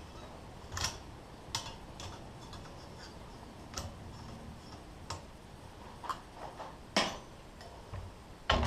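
Scattered light clicks and taps, about eight in all at uneven intervals, as tools work the thin sheet-metal petals of a forged rose into place. The two loudest come near the end.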